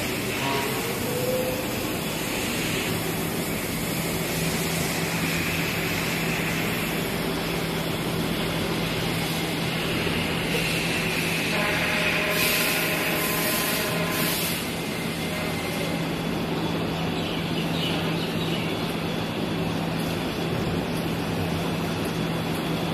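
Steady machinery noise from laser welding and cladding equipment: a constant low hum over an even hiss, with a brief higher whine near the middle.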